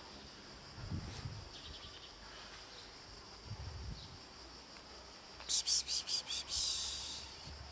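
Outdoor insect drone, a steady high thin whine. A bit over halfway in a louder high-pitched buzz starts as about half a dozen rapid pulses and runs on for about a second and a half before fading.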